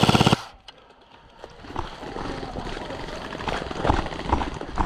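Airsoft electric gun firing a full-auto burst, a rapid even rattle of about twenty shots a second that cuts off a moment in. Then come quieter rustling and scattered knocks and thumps from moving over the ground.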